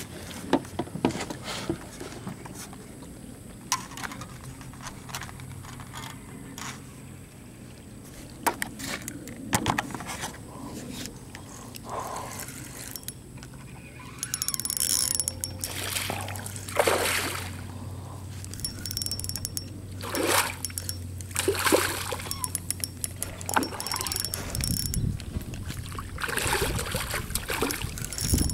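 Water splashing repeatedly as a hooked tilapia thrashes at the surface beside the boat, the splashes mostly in the second half. Scattered sharp clicks and knocks run through the first half.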